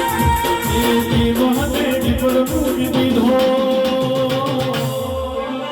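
Live Gujarati devotional folk music in an instrumental passage between sung lines: a steady drum beat of about three strikes a second under a sustained melody line. The drumming stops near the end and the held notes fade.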